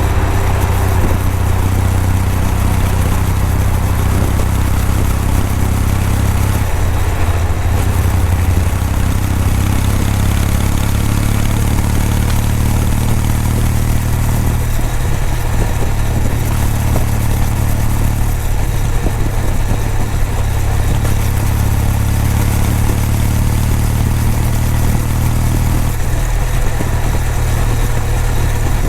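Kawasaki W800's air-cooled parallel-twin engine and exhaust running steadily under way, its note shifting in pitch several times.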